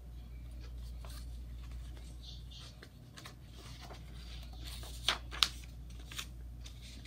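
Paper pages of a soft-cover picture book rustling and flapping as the book is handled and a page is turned, with two sharp paper snaps about five seconds in, over a steady low hum.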